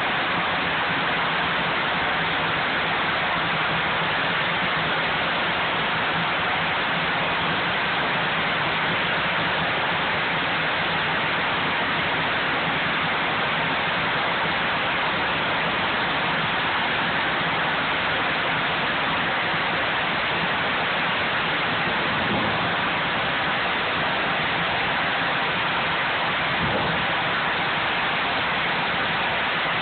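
Sawmill headrig band saw and log carriage running with a loud, steady roar while sawing a large Douglas fir log down the centre.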